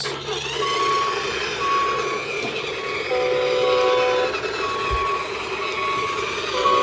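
Electronic sound effects from a battery-powered toy dump truck's speaker as it drives: a reversing beep repeating about once a second over a steady engine-like hum, with a horn chord sounding twice for about a second each.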